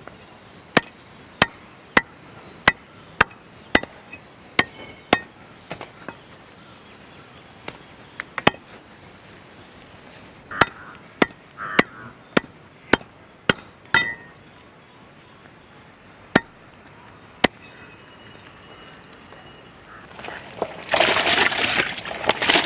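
Chicken being chopped into small pieces with a knife: sharp chops at about two a second at first, then more spaced out, stopping a few seconds before the end. Near the end, water splashing as the chicken is washed.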